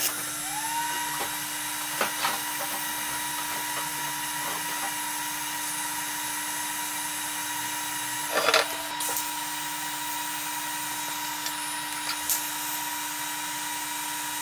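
TIG welding on a steel turbo exhaust manifold: the arc strikes about half a second in and runs with a steady electrical hum and hiss, with a brief louder crackle partway through.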